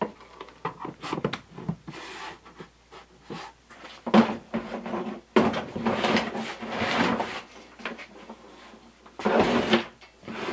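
Hard plastic nail gun cases being handled: a run of sharp clicks and knocks as a case is closed, then longer scraping and knocking as cases are slid onto a shelf among other tool cases.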